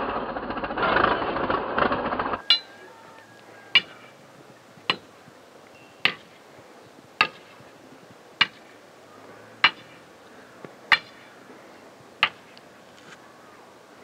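Old tracked bulldozer working as a snowplough, its engine running loudly, cut off abruptly about two and a half seconds in. After it come about nine sharp knocks that ring briefly, evenly spaced roughly one every 1.2 s.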